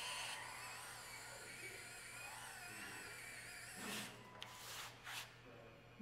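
Small electric gear motors of a 3D-printed 1/14 scale RC skid steer whining as it drives on its tracks, loudest for the first moment and then quieter. A few short scuffing noises come about four to five seconds in.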